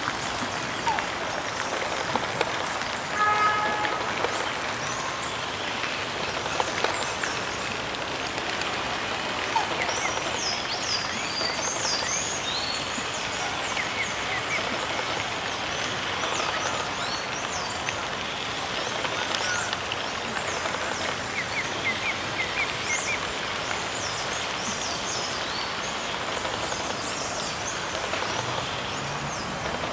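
Steady outdoor background hiss with short, high bird chirps scattered throughout. About three seconds in comes the loudest sound, a brief call repeated in a few quick pulses.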